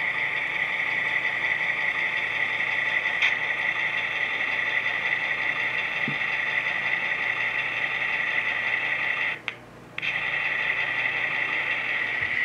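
HO scale model diesel locomotive running slowly along the track with a steady, high hum. About three-quarters of the way through, the sound cuts out for half a second, then resumes.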